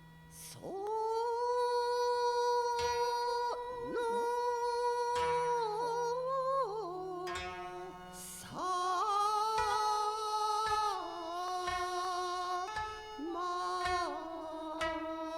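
Kibigaku, traditional Japanese music: long held melody notes that slide and step between pitches, over scattered plucked notes of a koto-like zither.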